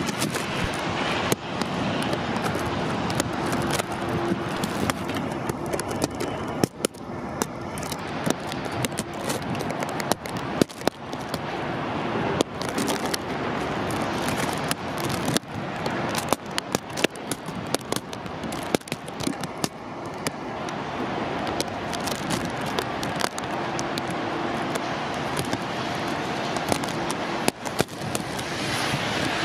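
Steady rushing of wind on the microphone with frequent sharp crackles and clicks, over the engine noise of a taxiing Boeing 777-300ER at idle.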